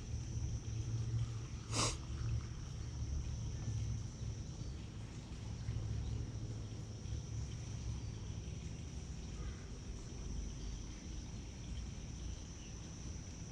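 Outdoor creek-side ambience: an uneven low rumble under a steady high-pitched drone, with a single sharp click about two seconds in.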